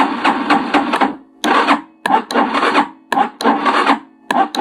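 Electric starter cranking a Chinese motorcycle's engine slowly and laboriously, in one long press and then several short ones, without the engine catching: the battery is too weak to turn it over properly.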